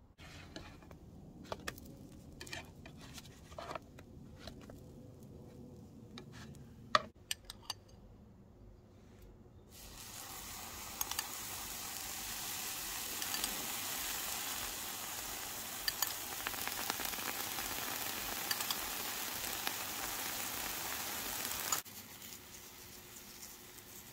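Pancakes sizzling in a hot non-stick pan as saffron syrup is spooned over them: a steady hiss with small crackles that starts about ten seconds in and cuts off abruptly near the end. Before it, a few light clicks and knocks of utensils against the pan.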